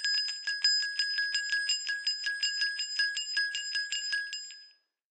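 A small metal bell rung rapidly, about five strikes a second, its several tones ringing on steadily between strikes; it fades away shortly before the end.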